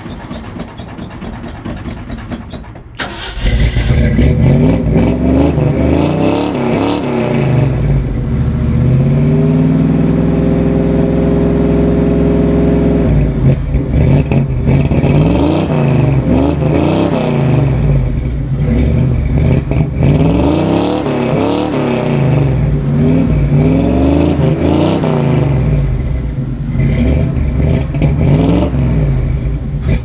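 Old Ford Bronco engine, cold and hard starting, heard at the tailpipe. It cranks for about three seconds, then catches and is revved, held at a steady high rev for several seconds, then revved up and down unevenly. It cuts out at the very end.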